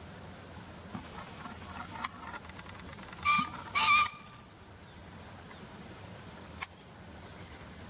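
Male green pheasant crowing: two loud, harsh notes about half a second apart. A couple of short sharp clicks come before and after.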